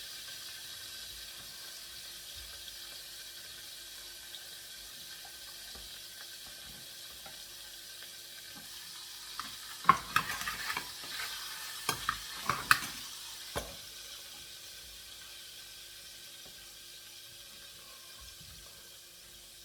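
Food sizzling steadily in a cooking pot, with a spoon stirring and knocking against the pot in a burst of clatter around the middle.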